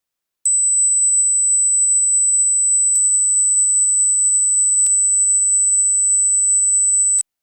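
Hearing-test tone: a single steady, very high-pitched pure sine tone that starts about half a second in and cuts off just before the end, with faint clicks where it starts and stops and twice in between.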